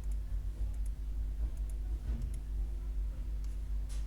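A few faint, scattered clicks of a computer mouse over a steady low hum.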